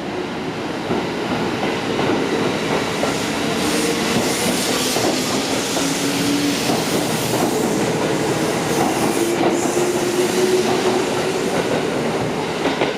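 Electric train pulling out along the platform, its motor whine rising slowly in pitch as it gathers speed over the clatter of wheels across rail joints.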